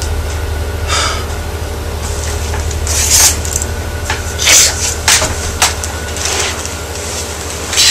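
Several short, scratchy rubbing sounds of hand on hair and hoodie fabric, over a steady low hum.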